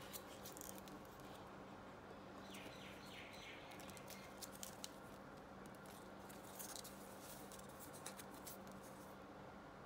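Faint scattered ticks and rustles of folded card and cardboard pages as an accordion-fold book is handled and pressed closed by hand, with a short scrape of card sliding on card about a third of the way in. A steady low hum lies underneath.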